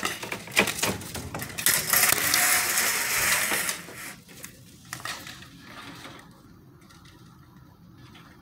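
Phone handling noise: a string of clicks and knocks, then a scraping rush for about two seconds as the phone is moved about, fading to a low background after about four seconds.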